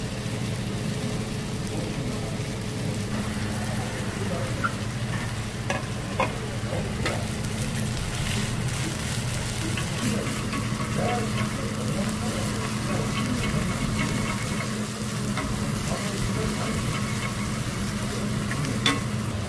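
Oil sizzling steadily under a seafood green-onion pancake frying on a flat steel griddle, with metal spatulas scraping and clicking against the griddle now and then, the sharpest click near the end. A steady low hum runs underneath.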